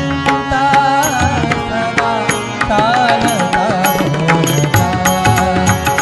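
Indian devotional-style music from a ringtone: a pakhawaj barrel drum plays a fast run of strokes, its low tones bending in pitch, under a wavering melody line and a steady drone.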